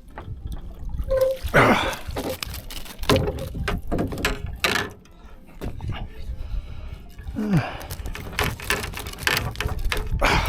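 Water splashing and gurgling in irregular bursts over a low rumble.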